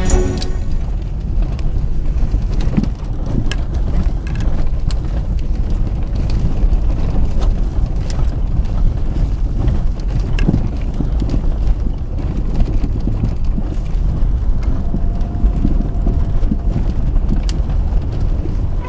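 A vehicle driving over a bumpy dirt forest track: a steady low rumble with frequent knocks and rattles as it rides over ruts and stones.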